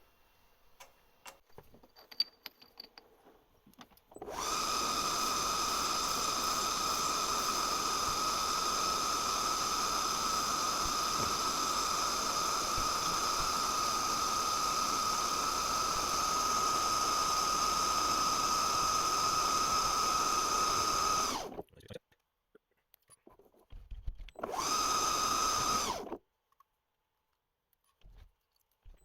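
Metal lathe running with a steady high whine as the saw-cut end of an aluminium rod is faced with a boring bar. It starts about four seconds in and runs steadily, then cuts off abruptly. It runs again briefly near the end.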